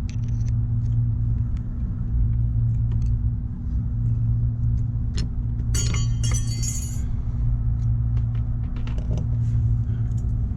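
Steady low hum throughout, with small metallic clicks and a brief ringing metal jingle about six seconds in, as hand tools work the brake pad pin out of a motorcycle's front brake caliper.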